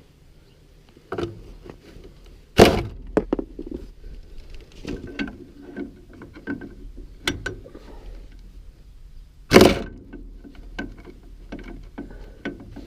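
Hand tools knocking and clanking against the feed wagon's shaft and bearing as the worn bearing and its locking collar are worked loose. Two heavy blows ring out about seven seconds apart, with lighter knocks and clinks in between.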